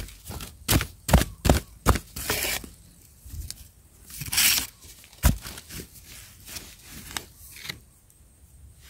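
Digging in soil around wild yam tubers: a metal blade chops sharply into the earth four times in the first two seconds, then soil and roots scrape and crunch as they are loosened, with two more single chops later on.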